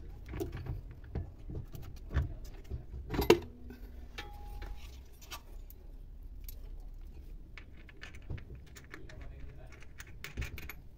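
Scattered metallic clicks and clinks of bolts, nuts and washers being handled and threaded while a sewing-machine servo motor is mounted on its bracket, with one louder knock about three seconds in.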